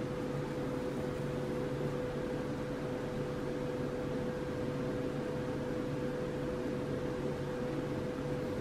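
A steady mechanical hum with a constant mid-pitched tone.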